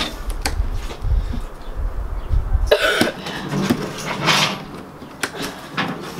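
Sharp clicks and scrapes of plastic packing straps being worked with a hand tool on a cardboard box, with two short rough bursts of noise, one about three seconds in and another a second later.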